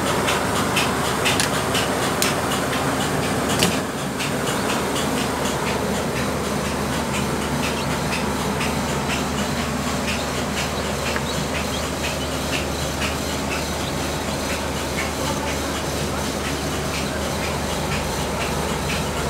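Egg incubator running with a steady hum from its fan and motor, and many short high peeps from hatchlings over it.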